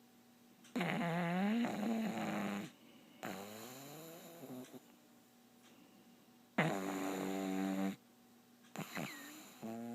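Snoring: three long, droning snores with a wavering pitch, each lasting about one and a half to two seconds. They come about a second in, about three seconds in and near the seven-second mark, and the middle one is fainter.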